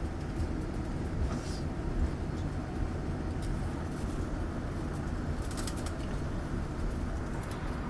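Steady low rumble of an airliner's engines and wheels heard inside the cabin as the aircraft rolls along the ground after landing, with a few faint high clicks about two-thirds of the way through.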